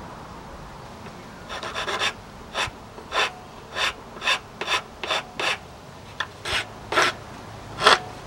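Metal hand file rasping along the edge of a small plywood part: about a dozen short strokes, roughly two a second, starting about a second and a half in, the last one the loudest.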